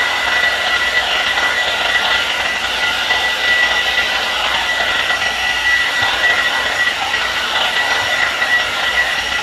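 Hot-air dryer brush (blower brush) running: a steady rush of blown air with a high, steady whine from its fan motor, cutting off at the very end.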